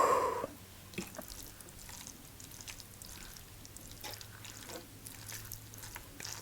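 A short, louder sound at the very start, then faint, scattered soft clicks and small wet sounds.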